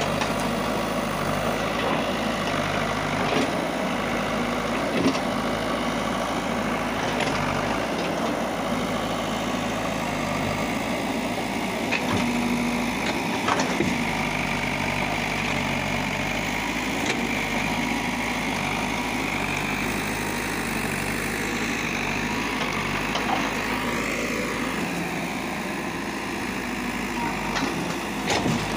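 Caterpillar 424B2 backhoe loader's diesel engine running steadily as the backhoe works, with a higher whine that rises and fades in the middle and a few short knocks.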